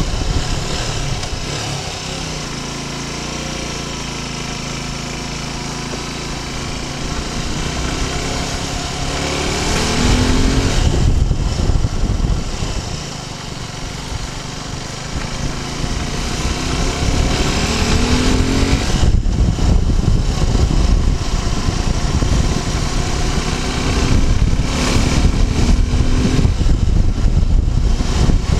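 Suzuki Gixxer 250's single-cylinder engine running under way: a steady, lower engine note for the first several seconds, then the pitch rises as it accelerates about ten seconds in, and again around eighteen and twenty-five seconds. Heavy wind rumble on the microphone runs under it from about ten seconds in.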